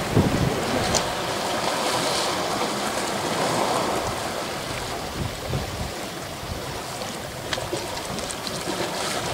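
Sea waves washing on the shore, a steady rushing wash that swells a little about two to four seconds in.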